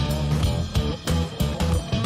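Background rock music with guitar and bass over a steady beat.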